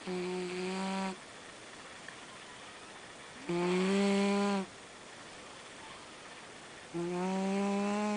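Domestic cat snoring in its sleep: three snores about three and a half seconds apart, each a steady buzzing tone lasting about a second.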